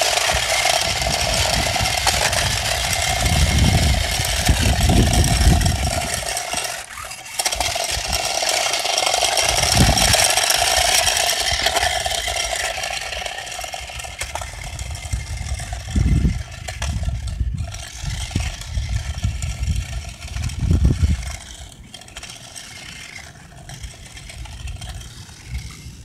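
Toy-grade Tyco RC Lightning McQueen car running on a concrete sidewalk: its small electric drive motor and gears whir steadily with the hiss of plastic tyres on rough concrete, fading from about halfway as the car drives off. A few low rumbles come and go throughout.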